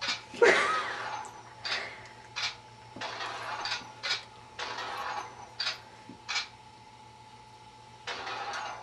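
Shotgun sound-effect app played through an iPhone's small speaker: a run of sharp shots, each with a short noisy tail, about one a second, stopping for the last couple of seconds.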